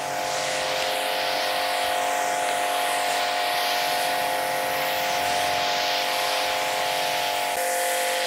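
Pressure washer running under load: a steady motor-and-pump hum over the hiss of the high-pressure jet striking concrete. The hum steps down slightly in pitch near the end.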